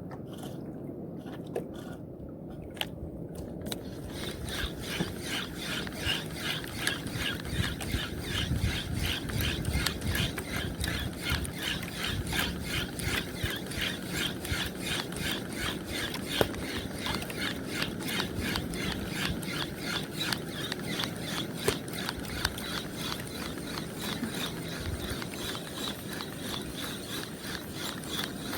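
Spinning reel (a Silver Rays 5000) being cranked fast to work a jig, its gears ticking in a quick, even rhythm, over a low steady rumble.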